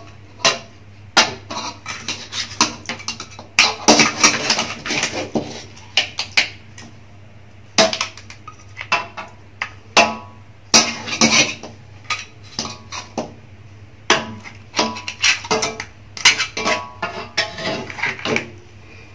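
Metal spatula scraping and clinking against a wok and a plate as pieces of crab, corn and mussels in thick sauce are scooped out, in irregular strokes.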